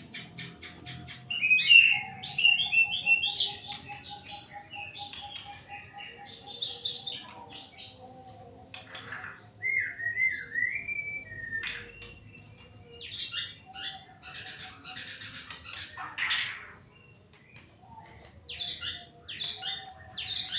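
White-rumped shama singing vigorously: a long, varied song of rapid note runs, gliding whistles and harsh notes, delivered in phrases of a few seconds with short pauses between.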